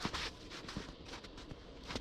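Footsteps crunching in fresh snow on a walking trail: about four steps, the first the loudest.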